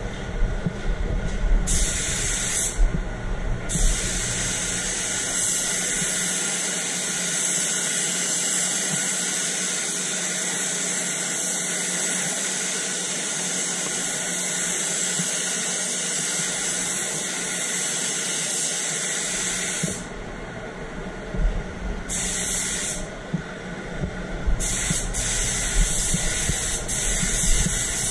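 Gravity-fed air spray gun hissing as it sprays white direct-gloss paint, trigger held for long passes with short breaks between them. A steady booth hum runs underneath.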